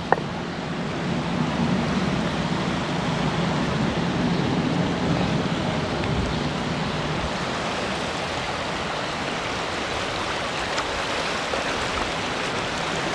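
Stream water rushing steadily over rocks, with a low hum under it through the first half.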